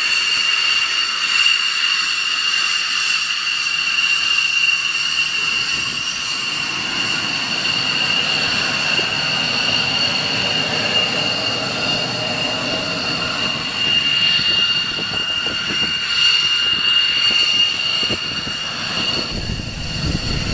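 Lockheed C-5 Galaxy's four turbofan engines at takeoff power during the takeoff roll: a steady high jet whine over a low rumble that gets heavier as the aircraft comes closer near the end.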